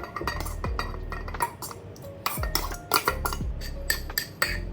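A utensil clinking and scraping against a bowl in many quick, irregular strikes while sliced spring onions are stirred into a dressing.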